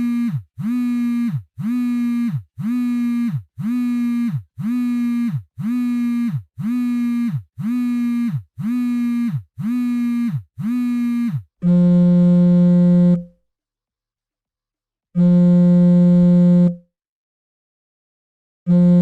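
Mobile phone vibration ringtone: a run of short buzzes about once a second, each rising at its start into a steady hum. About 12 seconds in, the pattern changes to longer, lower buzzes of about a second and a half, repeating every three and a half seconds.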